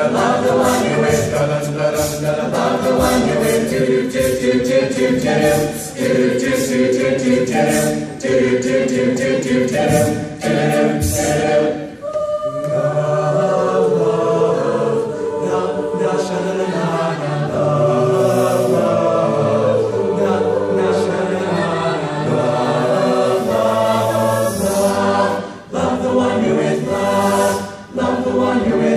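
Large mixed-voice a cappella group singing in harmony, with a crisp, steady percussive beat under the voices for about the first twelve seconds. After a brief break the beat drops out and the voices hold slower, sustained chords.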